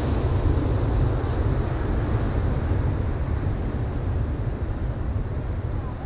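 Ocean surf breaking and washing up a sandy beach, mixed with wind buffeting the microphone as a heavy, uneven low rumble. The noise eases slightly near the end.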